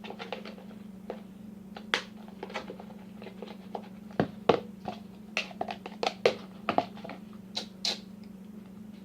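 Glue-and-shaving-cream slime being stirred and scraped in a bowl as it is brought together: irregular clicks and sticky taps, several a second, over a steady low hum.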